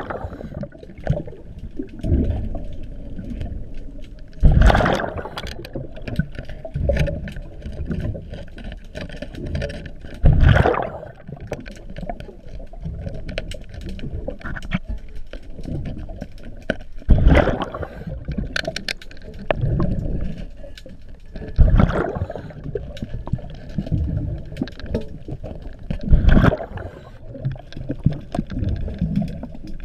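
Underwater breathing through a scuba regulator: each exhale comes out as a loud rush of bubbles about every five seconds, with quieter inhales and small clicks and scrapes from hands working at the propeller shaft in between.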